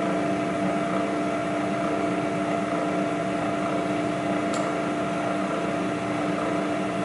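Precision Matthews PM-935TV milling machine running with its spindle turning and the end mill clear of the steel work: a steady hum with a few constant tones. One small tick about four and a half seconds in.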